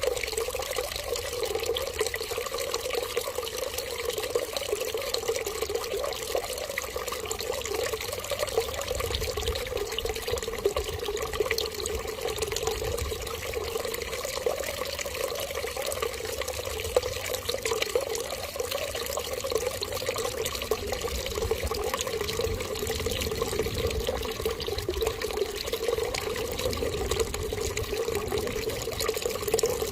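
Water running steadily and without a break, an even splashing rush.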